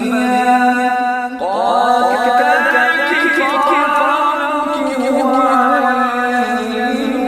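A male reciter chanting the Quran in melodic tajwid style: one voice drawing out long notes that waver and bend, with a short breath break about one and a half seconds in before the next phrase.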